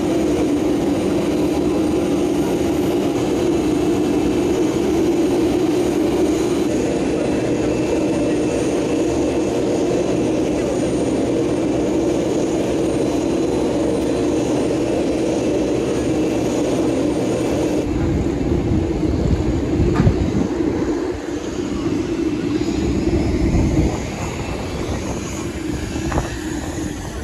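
Jet aircraft engine noise, a loud steady drone. About two-thirds of the way through, the sound changes abruptly: a low rumble swells and fades for several seconds, then the drone goes quieter.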